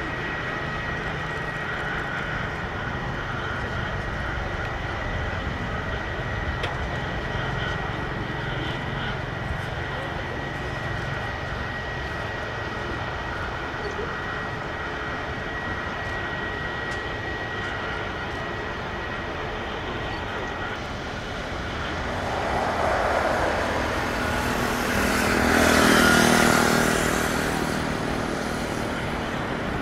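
Airliner jet engines: a steady high whine over a low rumble, then a passing jet that grows louder through the last third, peaks near the end and starts to fade.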